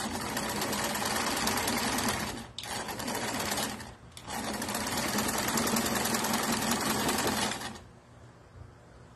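Electric domestic sewing machine stitching lace in three runs, with short stops about two and a half and four seconds in, then stopping near the end.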